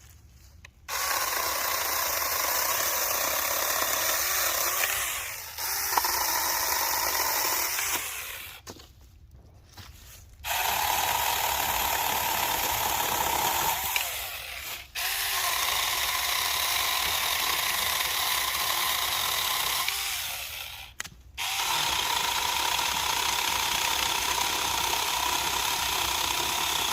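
Saker mini battery electric chainsaw with a 4-inch bar, its chain running with a steady high whine in five runs of a few seconds each and short pauses between, as it cuts small wood.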